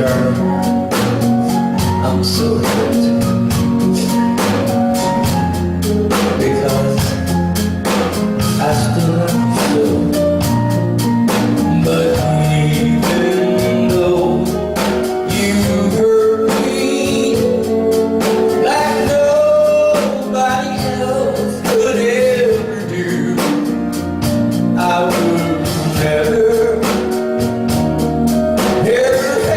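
A man singing a song over band accompaniment with a steady drum beat.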